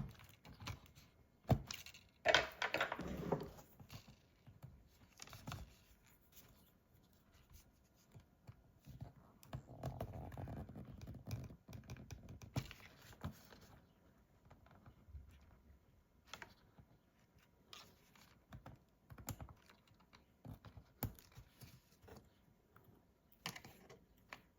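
Irregular small clicks, taps and scraping of tools and plastic parts being handled inside an opened laptop, with a longer scrape about two seconds in and a softer rustle near the middle.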